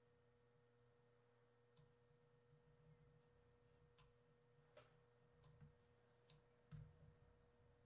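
Near silence: a faint steady electrical hum with several soft computer mouse clicks scattered through it.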